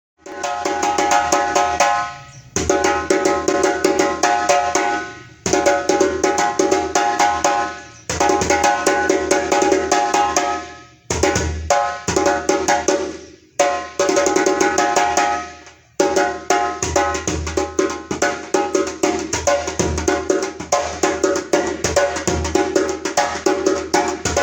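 Lenke-wood djembé played by hand in quick strokes, mixing deep bass hits with sharper slaps and tones, in several short passages that each die away before the next starts, then a longer unbroken run near the end.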